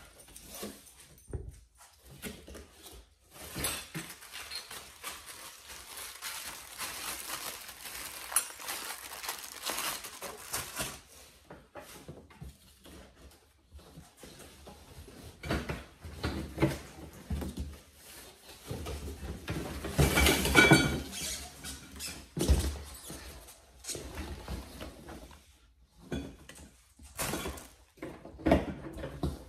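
A cardboard box and its plastic-wrapped packing being unpacked by hand: cardboard flaps scraping and rustling, plastic crinkling, and parts knocking and clattering against the box. A louder burst of rustling and knocks comes about two-thirds of the way through.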